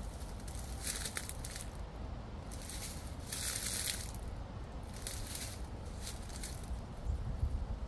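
Footsteps crunching through dry fallen autumn leaves at a walking pace, a short crunch roughly every second, over a low wind rumble.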